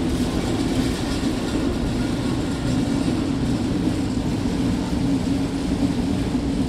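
Tour boat's motor running steadily as the boat cruises along the river, a continuous low drone under an even hiss of wind and water.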